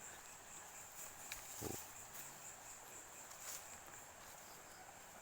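Faint steady chirring of crickets, a thin high note held throughout. A short low sound comes about a second and a half in, with a few soft clicks.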